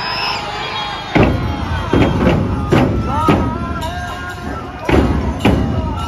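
Nebuta festival music: big taiko drums struck in an uneven rhythm starting about a second in, with bamboo flute notes above them and crowd voices.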